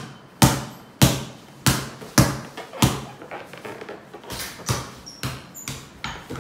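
A ball bouncing repeatedly on a tiled floor, one sharp bounce about every 0.6 s. About halfway through, the bounces give way to softer, more irregular taps.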